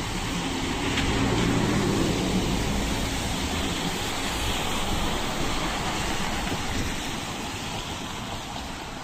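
Bus driving past, its engine and tyre noise swelling over the first couple of seconds and then slowly fading away.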